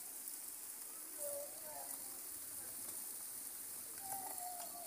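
Steady hiss of rain falling on a village lane, with faint distant voices of people calling out in the rain about a second in and again near the end.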